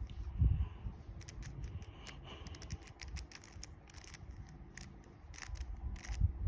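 A 3x3 Rubik's Cube being turned quickly by hand through a middle-layer algorithm: a fast, irregular run of plastic clicks as the layers turn, with a heavier knock about half a second in and again near the end.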